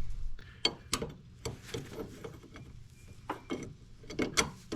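Light metallic clinks and knocks, about a dozen in irregular clusters with the loudest near the end, of a crow's foot wrench and ratchet being fitted onto the power steering high-pressure line nut.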